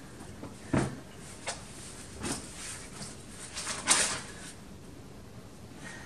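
Plastic GreenStalk planter tiers knocking and scraping as a soil-filled tier is handled and seated onto the stack: a few short clacks and scuffs, the loudest just under a second in and about four seconds in.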